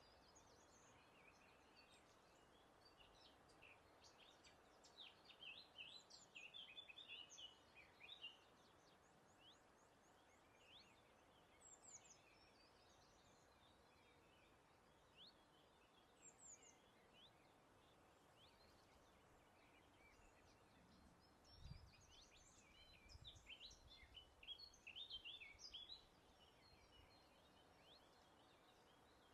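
Songbirds singing in quick chirps and trills, in two busy bursts with scattered single calls between, over a faint steady breeze.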